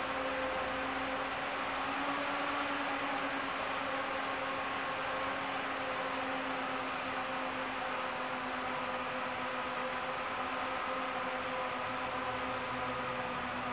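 Inside a 71-931M "Vityaz-M" articulated tram in motion: a steady hum with several held tones over an even rushing noise from the running tram.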